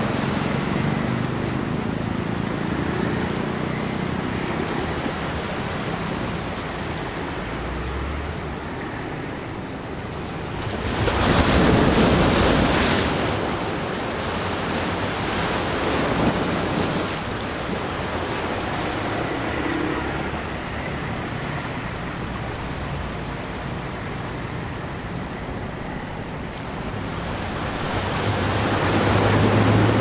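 Small sea waves washing over shoreline rocks: a steady rushing of surf, with a loud surge of breaking water about eleven seconds in and another building near the end. Street traffic hums low in the background.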